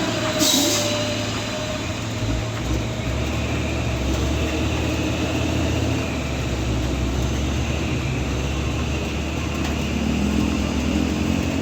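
Heavy truck's diesel engine running low and steady under load on a steep climb, with a short burst of hiss about half a second in and a higher engine note joining near the end.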